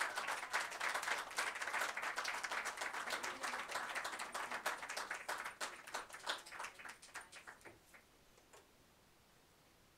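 Audience applauding, the clapping thinning out and dying away about eight seconds in.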